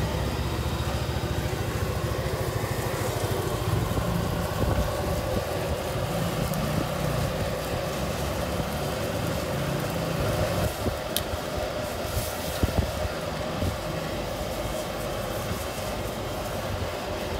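Gas wok burner of a street-food cart running steadily under a wok of boiling liquid and greens. A couple of sharp clinks come a little past the middle.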